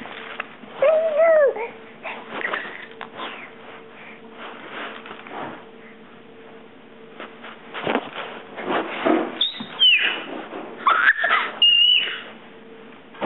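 Baby squealing: a short pitched coo about a second in, then a run of loud, high-pitched squeals that fall in pitch near the end.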